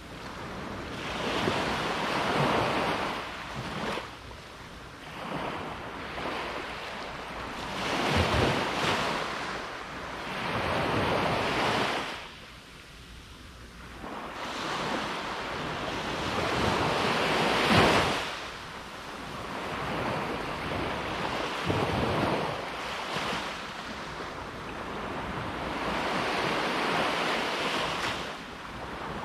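Sea waves breaking on the shore, a rushing wash that swells and falls back every few seconds, the biggest surge about two-thirds of the way through. Wind rumbles on the microphone underneath.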